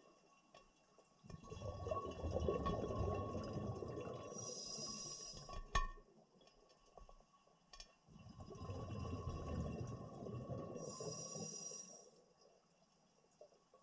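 Scuba diver breathing through a regulator underwater: two long bubbling rumbles of exhaled air, each with a short high hiss, and a sharp click about six seconds in.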